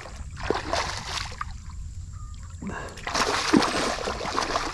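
A hooked redfish thrashing and splashing at the water's surface while being played on rod and line, in two bouts of splashing with a short lull in the middle.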